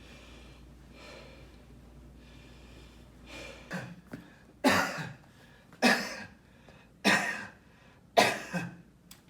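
A person breathing deeply in and out, then coughing four times, about a second apart, each cough sharp at the start and trailing off.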